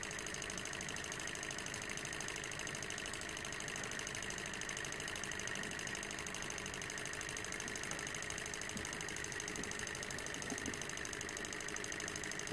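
SH-021 coaxial swing-arm beta Stirling engine running steadily at speed: a quiet, smooth, rapid mechanical whir from its swinging linkage and flywheel.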